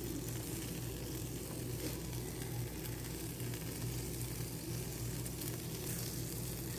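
Burger patties sizzling steadily on a wire grill over glowing charcoal, with a steady low hum underneath.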